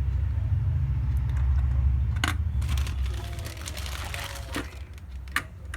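Handling noise with a few sharp clicks, as the CPU socket's metal retention plate is closed over a newly seated processor. A low rumble runs through the first half.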